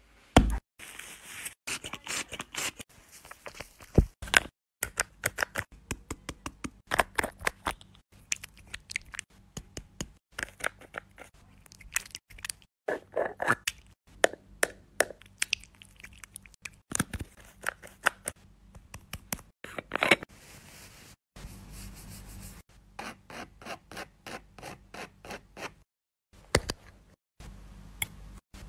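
Close-up fingertip taps and scratchy rubbing on a hard surface, many quick sharp clicks coming in runs. It stops and starts abruptly several times.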